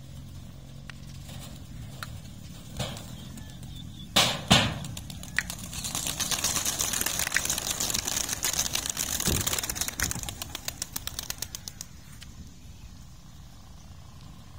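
A large flock of pigeons taking off together: a dense rush of wing flapping for about six seconds that thins into separate wing claps before fading. Two loud sharp knocks come just before the flock lifts off.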